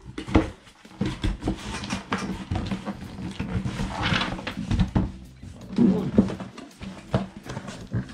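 Cardboard boxes being handled: a black helmet box scraping and knocking against the brown shipping carton as it is worked loose and lifted out, with many short knocks and a longer scraping rustle about four seconds in.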